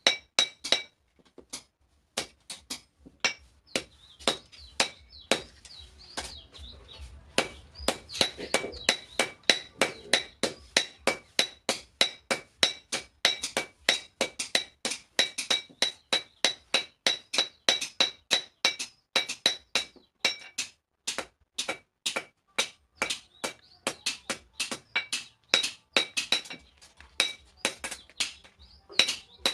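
Blacksmith's hand hammer forging steel on an anvil: quick, even blows about three a second, each with a bright metallic ring, broken by a couple of short pauses.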